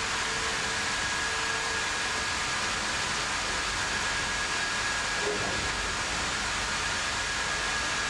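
Sawmill band-saw line running: a steady, even machine noise with a thin high tone held over it.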